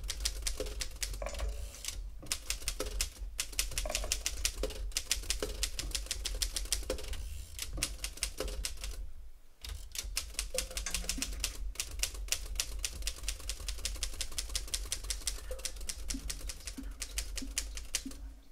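Typewriter keys clacking in quick, steady runs of strokes, with brief breaks about two and three seconds in and a longer one about nine seconds in. The typing stops just before the end.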